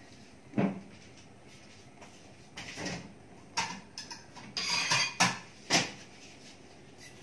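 Dishes and utensils clinking and knocking as they are handled in a dish rack, a handful of separate clatters spread over several seconds.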